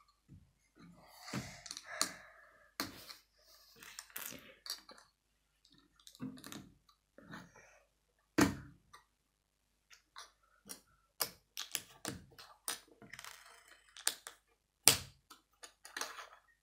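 Plastic Lego pieces clicking and rattling as they are picked out of loose piles and set down on a wooden table, in scattered sharp clicks with short rattly handfuls between. The loudest knocks come about eight and a half and fifteen seconds in.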